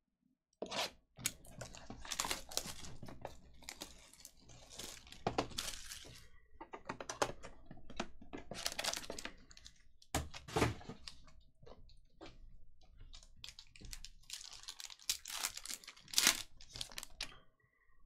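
Plastic shrink wrap and foil card packs crinkling and tearing as a sealed box of trading cards is cut open and its packs ripped open, with many small clicks and crackles of cardboard and wrapper handling.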